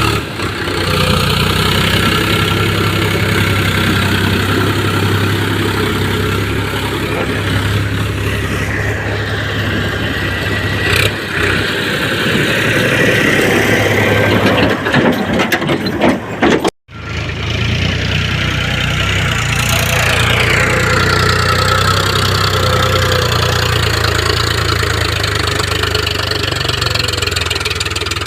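Diesel engine of a Powertrac tractor running steadily, with its pitch swelling and easing a little. The sound breaks off for an instant about two-thirds of the way through, then carries on.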